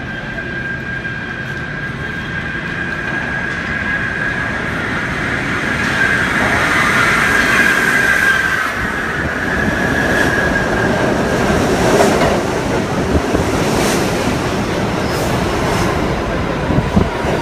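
An R68 subway train pulling into an underground station. A steady high wheel squeal from the curved approach fades after about ten seconds while the rumble of the cars grows louder, and sharp clacks over rail joints come as the cars pass.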